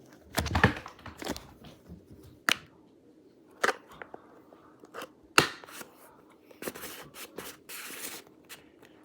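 Slime and plastic slime containers being handled: a string of separate sharp clicks and pops, coming thicker towards the end.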